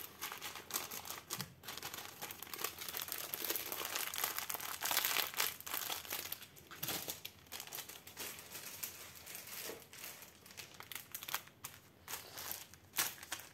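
Plastic packaging of a diamond painting kit crinkling as it is handled, in irregular spells of rustle and crackle.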